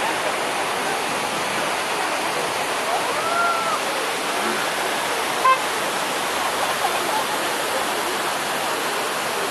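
Steady outdoor crowd hubbub with faint distant voices, one rising and falling about three seconds in, and a short sharp click about five and a half seconds in.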